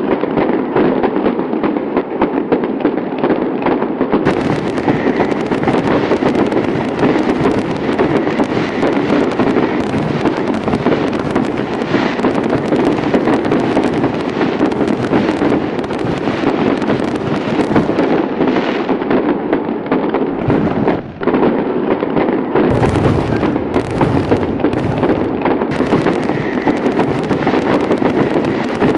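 Fireworks display: a dense, continuous barrage of crackling and popping bursts overlapping one another.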